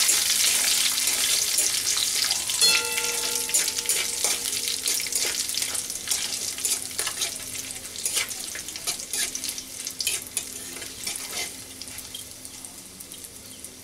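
Cumin seeds, dried red chillies and bay leaves sizzling and crackling in hot mustard oil in a metal kadai, with a metal spatula scraping and tapping the pan as they are stirred. The sizzle dies down gradually toward the end.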